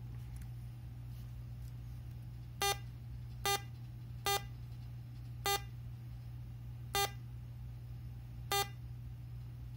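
Short electronic error beeps from an HP laptop's built-in speakers, six of them at uneven intervals, one for each key typed. The beeps are a Ctrl+Shift+E input fault on the Linux system.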